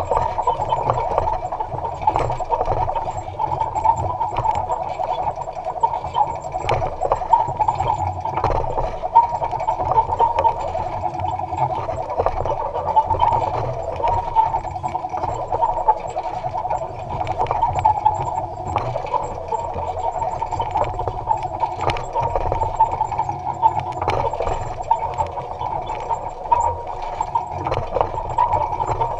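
Electric-powered Allis-Chalmers Model G tractor with a basket weeder working the rows: a steady mechanical hum with scattered clicks and rattles.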